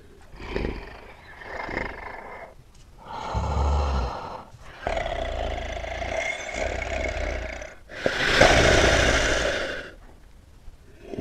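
A large animal snorting and breathing heavily in a string of separate, rough exhalations of different lengths. The loudest is a long, noisy snort about eight seconds in.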